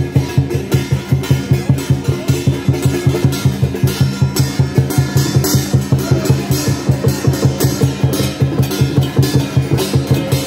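Music driven by fast, steady drumming, about five beats a second.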